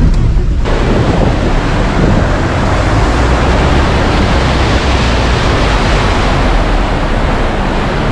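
A loud, steady rushing noise starts suddenly about a second in and continues over the low rumble of a jeep on the move.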